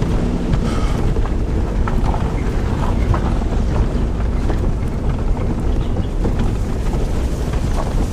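A vehicle driving along a road, its steady low rumble mixed with wind buffeting the microphone and a few light rattles.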